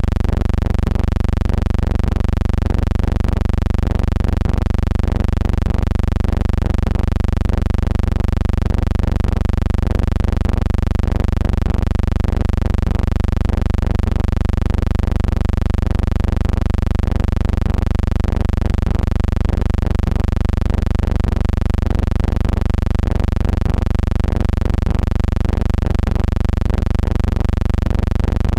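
A steady low hum with a stack of even overtones, unchanging throughout, with a slight even pulsing in level. No crowd or game sounds are heard.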